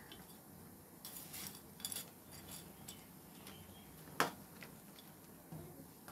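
A cooking spoon stirring egg and noodles in an aluminium kadhai, with scattered light clinks and scrapes against the pan and one sharper knock about four seconds in.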